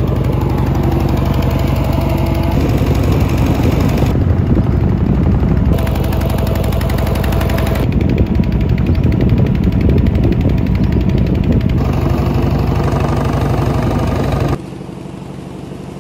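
A motor boat's engine running steadily under way, a loud, even thumping drone. It drops away suddenly about three-quarters of the way through, leaving a much quieter background.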